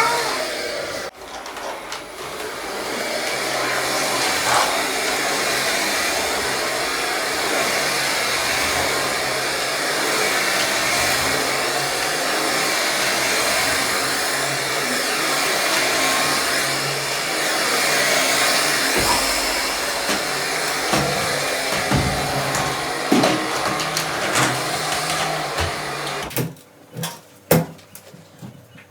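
Vacuum cleaner running steadily, then switched off near the end, followed by a few light knocks.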